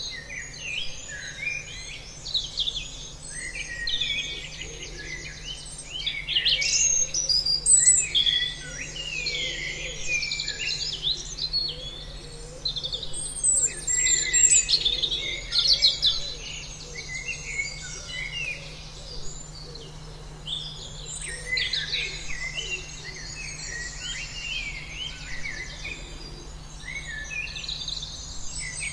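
A chorus of many birds calling at once: overlapping high chirps, quick rattling trills and short falling whistles, busier in spells, with no break.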